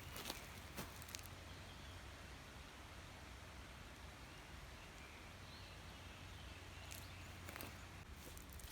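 Quiet outdoor ambience: a steady low rumble and hiss with a few faint small clicks near the start and again near the end, and faint bird chirps in the middle.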